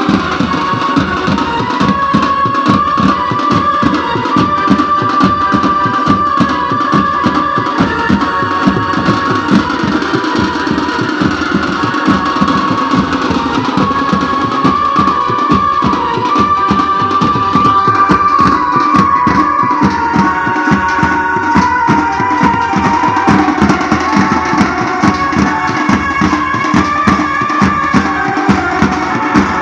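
Band music: a melody of held, stepping notes over fast, steady drumming.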